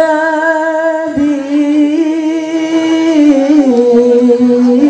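Solo male voice singing an Arabic sholawat line through a microphone with no drums: one long held note that wavers slightly and steps down in pitch about three and a half seconds in.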